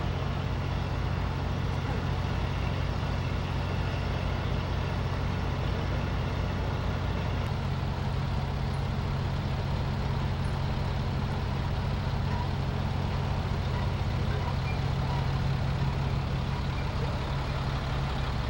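Heavy truck engine idling steadily, a low even hum.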